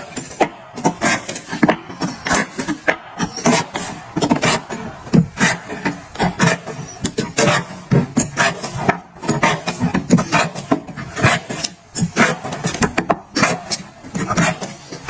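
Irregular handling noise of hands working on a hose repair: rubbing, scraping and sharp clicks, several a second, with no steady tone.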